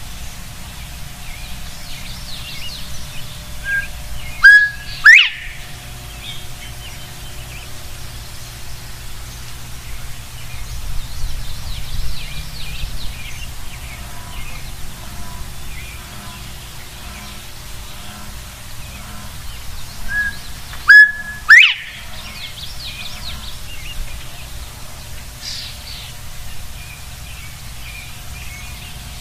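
Male northern bobwhite giving its 'bob-white' whistle twice, about sixteen seconds apart: each a short lower note followed by a loud, sharply rising whistle. Other birds chirp faintly in between.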